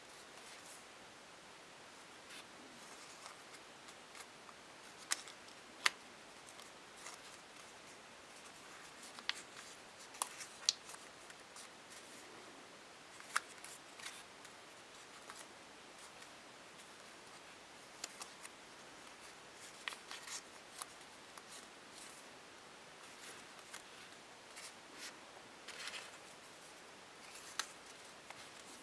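Folded paper strips of an origami shuriken rustling and crinkling as hands handle, crease and tuck them together, with irregular sharp crisp snaps.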